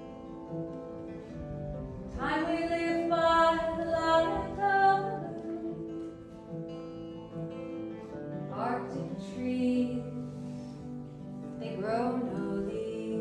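Live acoustic music: an acoustic guitar playing with a voice singing long phrases that slide up into their notes, at about two seconds in, again near the middle and near the end.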